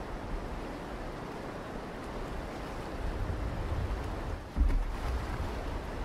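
Fast river current rushing around an inflatable boat as it heads into rapids, with wind gusting on the microphone in low rumbles, strongest about four and a half seconds in.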